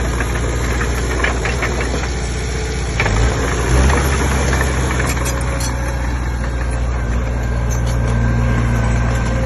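Komatsu D20P bulldozer's diesel engine running with a knocking clatter. About three to four seconds in, the engine note rises and briefly gets louder, then holds steady.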